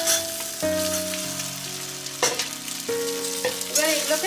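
Cut pieces of steamed idli sizzling in hot mustard oil in a kadai, a steady frying hiss as they are stirred with a metal spatula. Held notes of background music run underneath.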